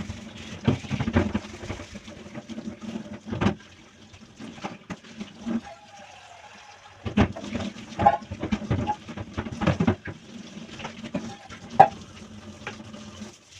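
Dishes being washed by hand at a sink: water running with repeated clinks and knocks of dishes and utensils, the sharpest knock near the end.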